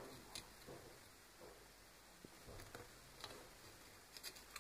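Near silence, with a few faint scattered clicks and taps from a soldering iron tip working on a tablet's circuit board, several of them close together near the end.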